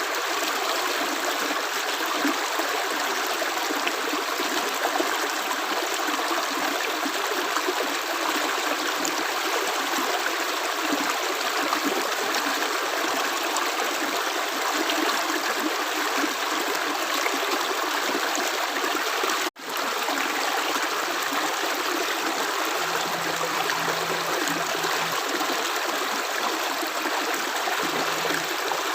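Steady rush of flowing water, a small stream or trickle, with no separate drops standing out. The sound cuts out for an instant about twenty seconds in.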